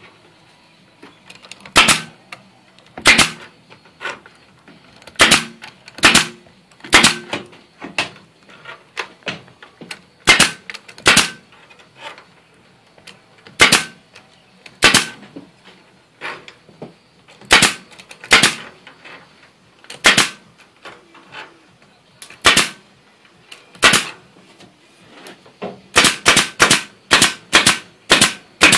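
Pneumatic staple gun firing staples through chicken wire into a wooden frame: single sharp shots spaced one to three seconds apart, then a quick run of about eight near the end.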